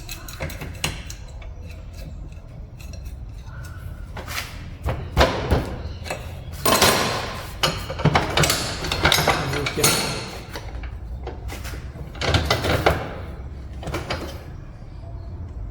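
Hand tools clinking and scraping against steel suspension parts in irregular bursts, as a wrench is worked on a worn ball joint.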